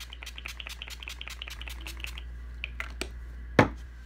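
Mario Badescu rose water facial spray pumped in a fast run of short spritzes, about seven a second, for roughly two seconds. A few lighter clicks follow, then a single sharp knock, the loudest sound, near the end.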